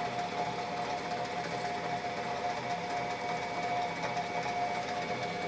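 Metal bench lathe running while turning a taper, the tool fed by hand on the top slide, with a steady whine.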